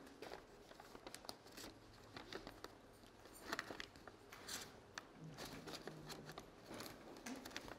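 Faint rustling and crinkling of paper sheets being handled and leafed through, with scattered small clicks.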